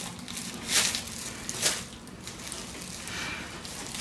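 Clear plastic produce bag rustling and crinkling as a head of cauliflower is handled inside it, with two louder crinkles about a second apart.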